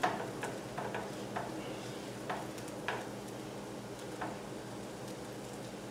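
Vegetable stir fry sizzling in a skillet while a silicone spatula stirs it, scraping and tapping against the pan a dozen or so times at irregular intervals.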